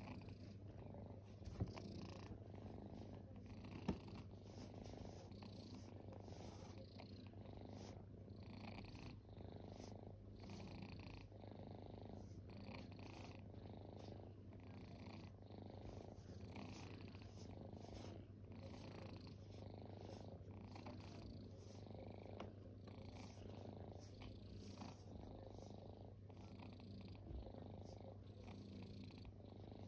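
Domestic cat purring softly and steadily, the purr swelling and easing in a slow rhythm about once a second. Two short faint taps sound in the first few seconds.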